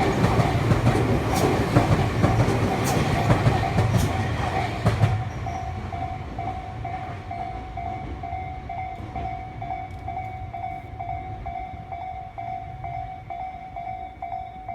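A train passing over the level crossing, its wheels clicking over the rail joints, ends abruptly about five seconds in. A Japanese level-crossing electronic warning bell then rings on, about two strokes a second, signalling that the crossing is still closed.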